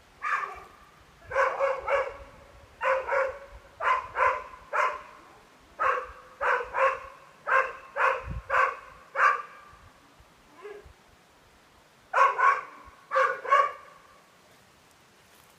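A dog barking repeatedly, short high-pitched barks in quick clusters of two or three, with a pause of about two seconds near the end before a few more barks.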